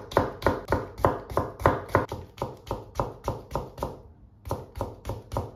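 Kitchen knife cutting a carrot into thin julienne strips on a plastic cutting board: a steady run of chops, about three a second, with a short break about four seconds in.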